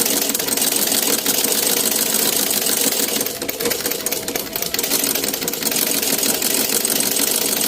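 Antique Singer treadle sewing machine running steadily under foot-pedalling, a fast, even mechanical ticking of the needle mechanism that eases slightly for a moment about halfway through.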